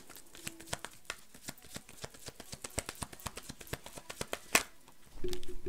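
Tarot cards being shuffled by hand: a quick, irregular run of light card clicks and riffles, with one sharper snap about four and a half seconds in.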